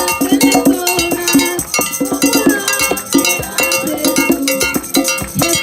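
Percussion-heavy music: fast, dense ringing strikes over short held notes, with a steady rhythm.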